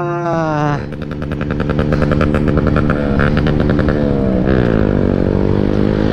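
Motorcycle engine running as the bike slows to a stop, its pitch falling between about three and five seconds in before it settles to a steady idle.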